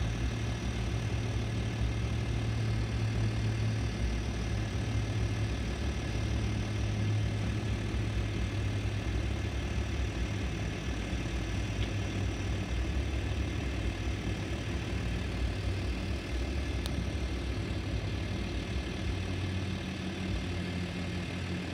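A vehicle engine idling steadily: a low, even hum with no change in speed.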